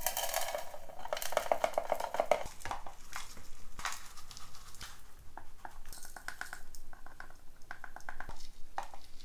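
Dry granular substrate being poured from a plastic tub into small plastic containers, the grains rattling against the plastic in a dense stream for the first two and a half seconds, then lighter scattered taps and trickling.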